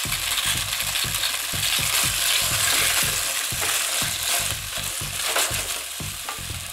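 Cubed potatoes sizzling as they fry in chicken fat in an enamel pot, with the soft knocks and scrapes of a wooden spoon stirring them.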